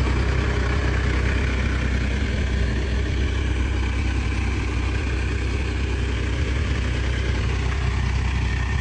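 Case 580 backhoe's engine idling steadily with a low, even hum.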